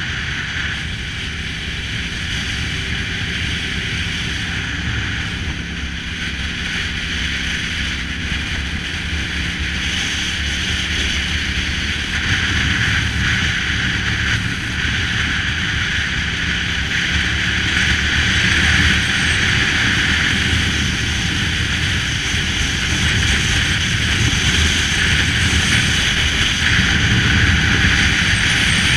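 Cruiser motorcycle's engine running steadily under way, with wind rushing over the microphone. The wind hiss grows louder from about halfway through.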